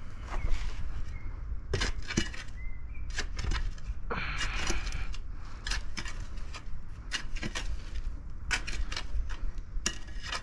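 Steel shovel blade repeatedly scraping and stabbing into gravelly soil, a run of short crunches with one longer scrape about four seconds in. A bird chirps faintly near the start.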